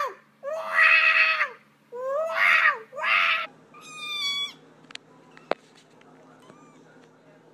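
A domestic cat yowling loudly: three harsh, drawn-out cries in quick succession, then a cleaner, quieter meow. Two sharp clicks follow.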